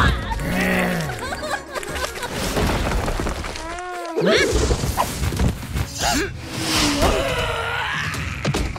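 Animated cartoon soundtrack: background music with crash and impact sound effects, mixed with short wordless character cries whose pitch rises and falls.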